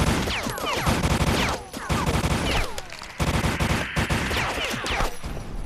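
Soundtrack machine-gun fire in three long sustained bursts, laced with sharp falling whistles, stopping about five seconds in.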